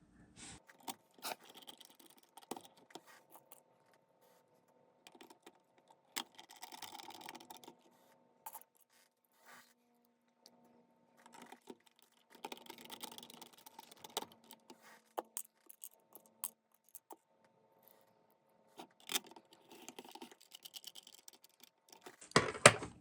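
Hand reassembly of a Panasonic RQ-V150 personal cassette player: irregular small clicks, taps and short scrapes of its plastic case parts and small tools being handled and fitted together.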